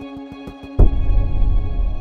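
Soundtrack music: held notes over a steady ticking beat, then a deep bass boom just under a second in that rumbles and slowly fades.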